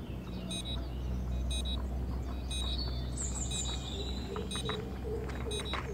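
Electronic beeper giving a short, high beep about once a second over a steady low hum.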